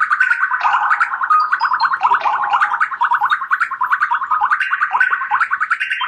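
A ringtone playing from the Sharp Aquos Pad SH-08E tablet's built-in speaker: a fast, unbroken run of short, chirpy high notes, several a second.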